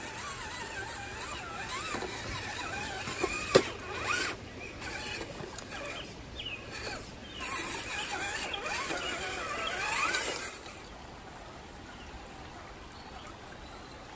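Electric motor and gears of an RC4WD TF2 LWB scale crawler whining, the pitch rising and falling with the throttle, with a sharp knock about three and a half seconds in. The whine stops about ten and a half seconds in.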